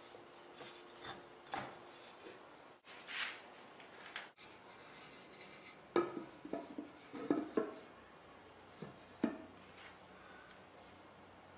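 Faint rubbing or sanding strokes on wood, then several light knocks and taps of wooden pieces being handled.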